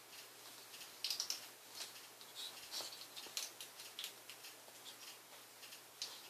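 A ferret playing with a leather belt on a fleece blanket: irregular light rustling, scratching and clicking as it paws, bites and drags the belt, busier from about a second in.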